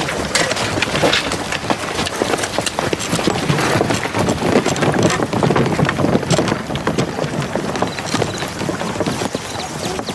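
Footsteps of a group of people walking with bicycles over a wooden footbridge: a continuous, irregular clatter of steps.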